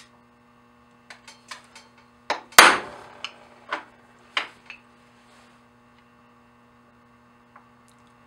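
Hammer striking a steel center punch on a hardened steel bolt to mark a hole center for drilling: a few light clicks as the punch is set, then two hard metallic strikes about two and a half seconds in, followed by a few lighter taps.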